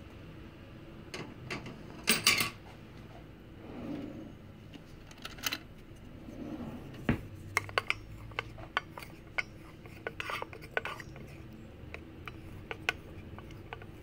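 Wooden spoon stirring a liquid in a stainless steel saucepan, scraping and tapping against the pot's sides in irregular clicks and knocks, the loudest about two seconds in.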